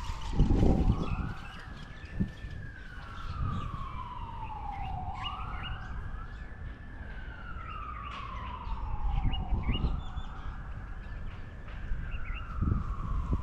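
Emergency vehicle siren wailing in slow cycles, each rising quickly and then falling away over a few seconds, about three times over, with small birds chirping.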